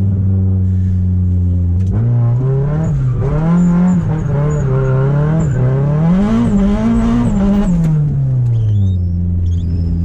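Nissan 240SX engine running under load at low speed. Its pitch holds steady, then rises and falls several times as the car is driven, and settles back to a steady pitch near the end.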